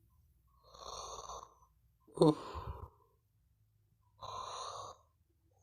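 A person's slow, heavy breathing: three long breaths about a second and a half apart. The middle one opens with a short voiced sound falling in pitch.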